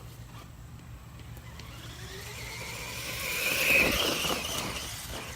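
A vehicle's noise swells to a peak about four seconds in, then fades, like a vehicle going by.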